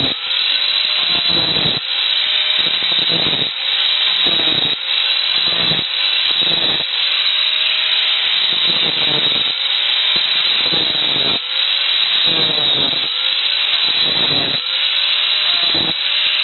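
Angle grinder with a thin cutting disc cutting a row of notches across steel rods, biting in about once a second. Between cuts its pitch rises as the disc speeds back up.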